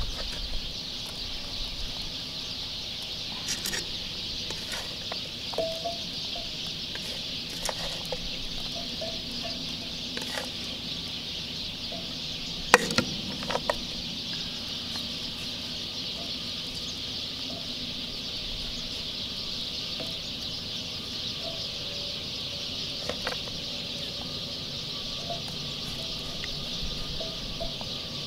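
Steady high-pitched outdoor insect chorus, with scattered soft taps of potato slices being laid into a cast iron Dutch oven and one sharper knock about halfway through. A few short faint bird calls here and there.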